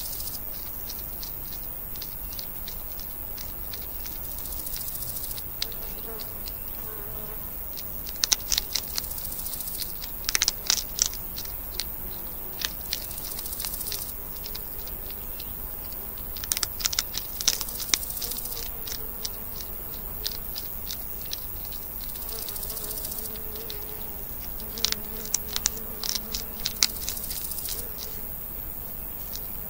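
Baby hedgehogs eating, crunching hard food in clusters of sharp clicks every few seconds, with insects buzzing faintly throughout.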